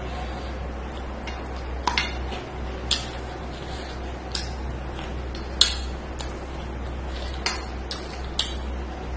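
A hand mixing rice and curry on a stainless-steel plate, with a handful of sharp clicks against the steel; the loudest comes a little past halfway.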